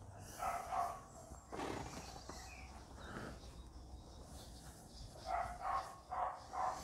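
A dog barking: two short barks about half a second in, and a quick run of four or five barks near the end.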